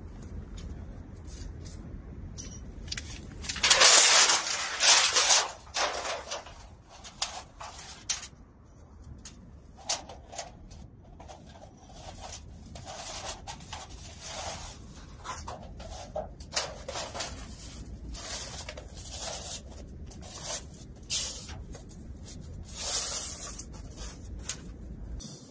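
Tent stove being assembled: metal stovepipe sections handled and slid together, with a loud scraping slide about four seconds in, then scattered light metallic clicks and knocks. A low steady rumble runs underneath.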